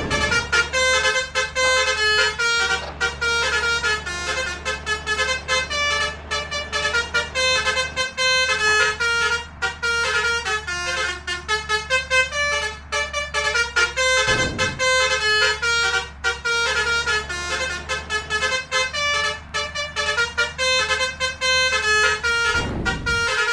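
Multi-tone musical 'telolet' bus horn (Basuri horn) playing a quick melody of short stepping notes over and over, above a steady low engine hum. A short rush of noise cuts in about two-thirds of the way through and again near the end.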